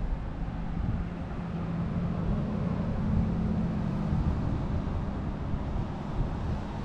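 A motor running steadily: a low rumble with a hum that grows stronger for a couple of seconds, about two seconds in.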